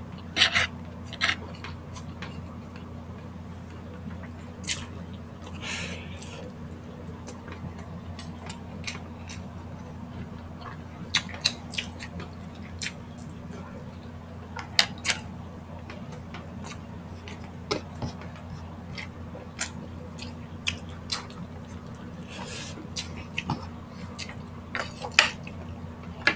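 Close-miked eating: chewing and mouth sounds with scattered sharp clicks and taps as grilled skewers and rice are handled at the table, over a steady low hum.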